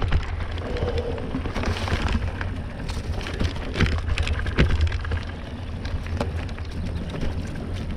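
Mountain bike tyres rolling over dry leaves and twigs on a forest trail, with a dense, irregular crackling and clatter over a steady low rumble.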